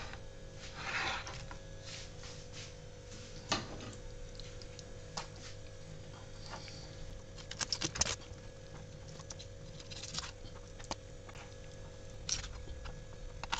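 Kitchen knife cutting raw chicken wings apart at the joints on a cutting board: scattered soft clicks and crunches, with a quick run of clicks about eight seconds in, over a faint steady hum.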